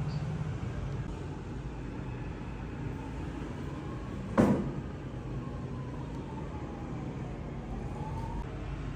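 Steady low background hum with a single sharp knock about four and a half seconds in, and faint tones gliding down and then up near the end.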